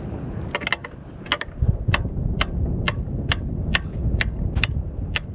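Hammer striking a makeshift metal drift at the masthead, about two sharp taps a second with a brief metallic ring, knocking out the forestay pin.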